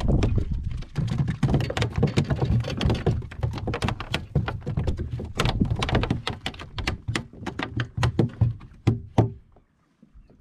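Quick, irregular knocks and clatter of gear being handled against a plastic kayak hull, over a low rumble. It thins out and stops abruptly near the end.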